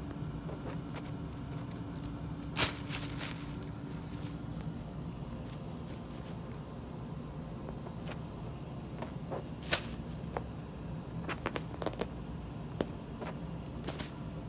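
Crumpled tissue paper crinkling in short sharp rustles as a cat pokes its head into it and paws at it: one loud rustle about two and a half seconds in, another near ten seconds, then a run of smaller crinkles. A steady low hum lies underneath.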